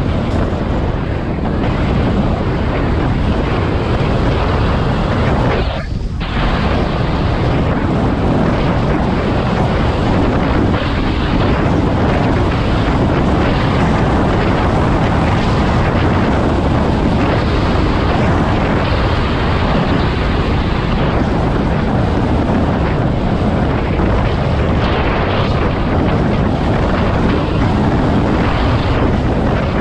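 Wind rushing over the helmet-camera microphone of a moving electric scooter: a loud, steady roar of wind noise that dips briefly about six seconds in.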